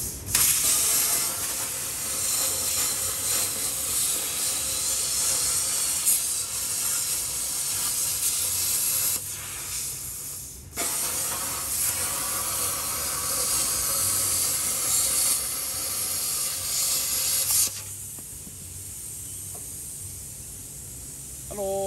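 Plasma cutter cutting a window through a steel truck frame rail: a steady hiss that breaks off briefly about halfway through, then stops sharply about three-quarters of the way in, leaving a quieter hiss of air.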